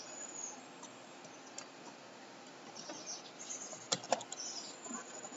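Computer keyboard being typed on: a few scattered keystrokes, then a quick cluster of key clicks about four seconds in.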